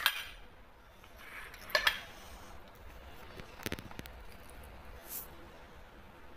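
Cutlery and dishes clinking at a meal: a few sharp taps, one about two seconds in, a short cluster near four seconds and a fainter one a little after five seconds.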